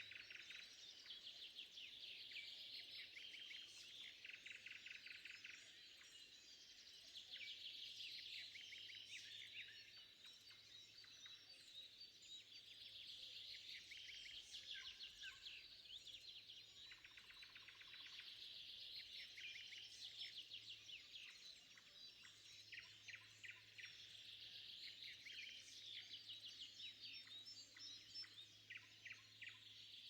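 Faint spring woodland dawn chorus: several songbirds singing at once, with rapid repeated notes and trills overlapping without a break.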